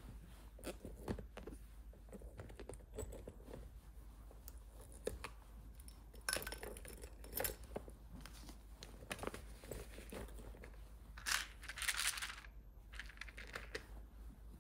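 Small objects being picked up and put into a handbag: scattered light taps and clinks with rustling, and a longer rustle about eleven seconds in.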